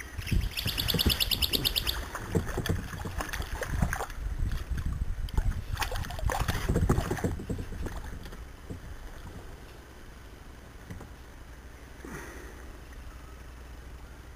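Knocks, rattles and water splashing around a fishing kayak, busy for the first eight seconds or so, then settling to a quieter wash. A fast, high-pitched trill sounds in the first two seconds.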